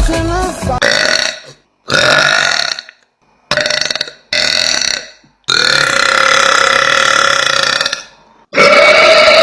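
A woman burping: a string of about six deep, drawn-out burps one after another, each held on a steady pitch, the longest lasting about two and a half seconds, most of them cut off abruptly.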